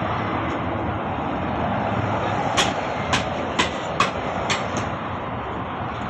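A car's old windshield being knocked loose with light blows: about six sharp knocks, roughly half a second apart, in the middle, over steady background noise.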